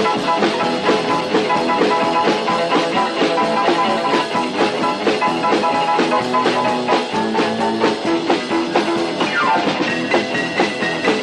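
Instrumental break of a rock and roll record: band playing with drums keeping a steady beat and guitar, with a falling slide about nine seconds in.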